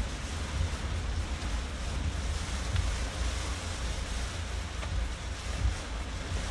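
Car in motion in typhoon wind and heavy rain, heard from inside the cabin: a steady hiss of rain and tyre spray over a low, unsteady rumble of wind buffeting and road noise.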